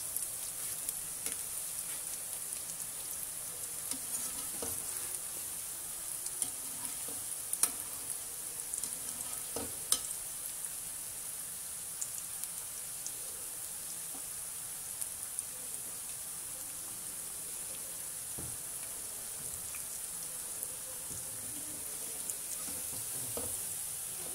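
Cauliflower pakoras sizzling steadily in hot oil in a steel wok during their second deep-fry, turned with a wire-mesh skimmer. A few sharp clicks stand out, the loudest about eight and ten seconds in.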